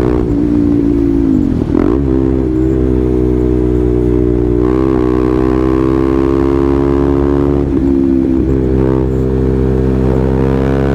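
KTM Duke 390's single-cylinder engine running loud at fairly steady revs, its pitch briefly dipping and recovering about two seconds in and again around eight seconds in.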